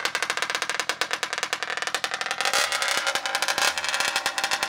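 RCMAX 80cc two-stroke gas engine in a 1/5-scale RC monster truck running loudly on its first start, warming up. About halfway through it briefly revs up, growing louder and higher, then settles back.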